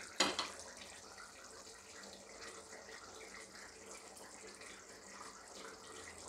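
Thick chicken curry boiling in a large aluminium pot, a faint steady bubbling. Two quick sharp knocks sound just after the start.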